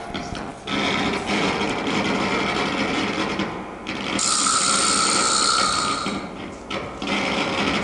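Live free-improvised music from an electric guitar, alto saxophone and drums trio, here a dense, grinding, scraping noise texture rather than clear melody. A harsher, hissier layer with one held tone comes in around the middle for about two seconds.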